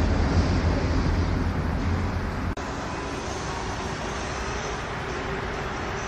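Steady background noise of distant road traffic by a river, with a heavy low rumble of wind on the microphone. About two and a half seconds in it drops abruptly to a quieter, even traffic hum.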